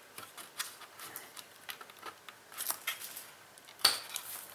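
Small irregular clicks and scrapes of a plastic pry tool and plastic parts being worked inside an open Acer ES1-512 laptop, with one sharp click near the end.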